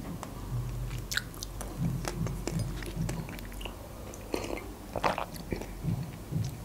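Close-miked chewing of soft pastry, then a couple of sips from a mug about halfway through.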